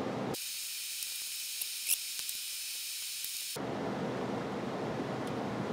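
Steady hiss of recording noise with no distinct source. For about three seconds the lower part drops away, leaving a thinner high hiss, and a few faint small clicks come around two seconds in.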